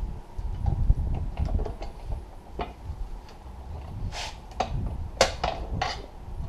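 A few sharp knocks and clanks over a low, uneven rumble, as the tractor seat's parts are handled and worked on.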